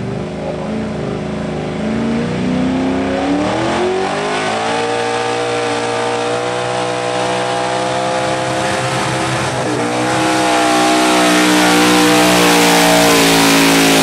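A Chevrolet pickup's engine revs up and is held at high revs under full load while the truck pulls a weight-transfer sled, its rear tyres spinning in the dirt. The engine note dips briefly about two-thirds of the way through, then comes back louder with a growing rush of noise.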